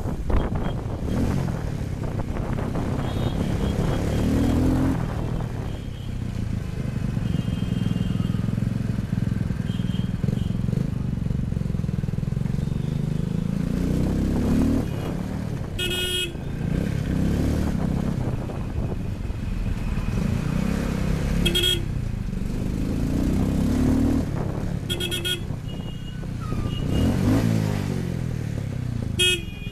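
Motorcycle engine running under way, its pitch rising and falling several times as it accelerates and eases off. Short vehicle horn honks sound four times in the second half.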